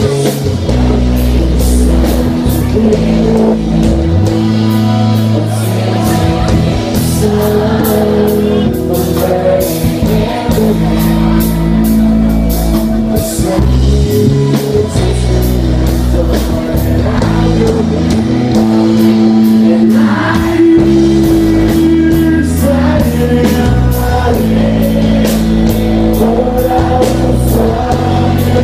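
Live rock band playing through a concert PA: a male lead vocal over electric guitars, bass guitar and drums.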